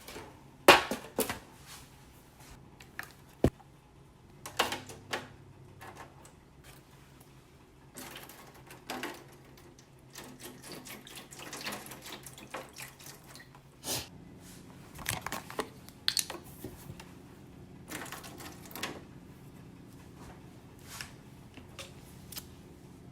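Scattered sharp clicks and knocks of things being handled, the loudest about a second in, with a few short splashes of water.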